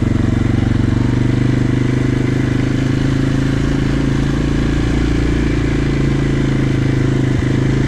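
Engine of a small farm utility vehicle running steadily at a constant pitch, with one light click near the end.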